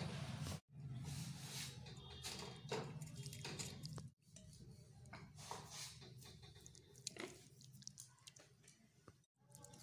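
Faint kitchen sounds of serving carrot curry: a spoon squelching through the thick curry and clicking on a steel plate, over a low hum. The sound cuts off sharply twice.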